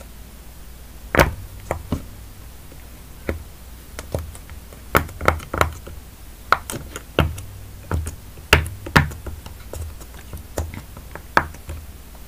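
Strawberry-shaped silicone pop-it fidget toy with its bubbles pressed one at a time by a fingertip: a string of short, irregularly spaced pops, about two a second.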